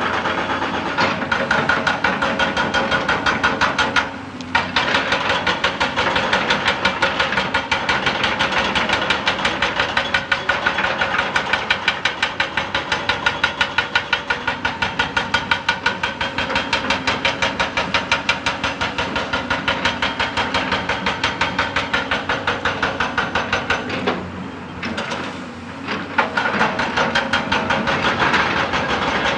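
Excavator-mounted hydraulic rock breaker hammering rock in a rapid, steady train of blows, several a second, under the machine's engine. It stops briefly about four seconds in and again for a couple of seconds near the end.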